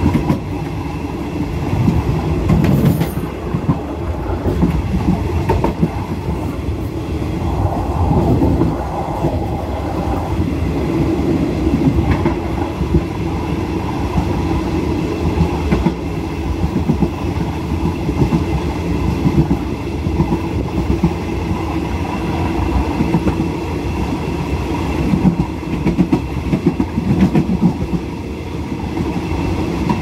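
Passenger train running along the track, heard from its last carriage: a steady rumble of wheels on the rails with clickety-clack over the rail joints.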